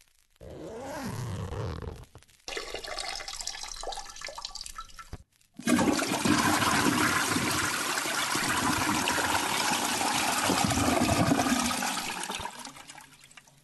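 Two short sounds with hard cuts between them, then a loud rush of water lasting about seven seconds that fades out near the end.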